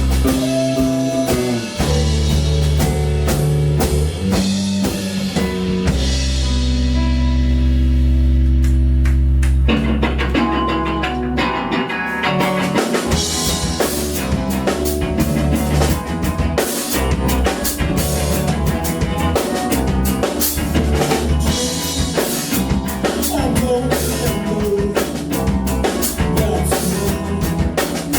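Band playing rock music on drum kit and guitar: long held low notes for the first ten seconds or so, then busy drumming drives the rest.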